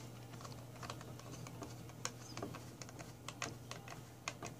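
Hand Phillips screwdriver driving a small screw into a plastic mount, giving faint, irregular light clicks.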